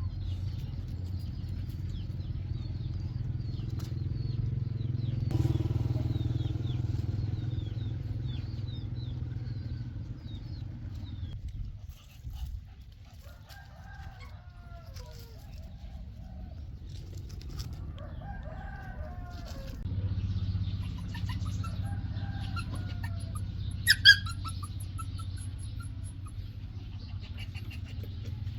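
Birds calling outdoors: many short high chirps, then lower, bending calls, over a steady low rumble, with one sharp click near the end.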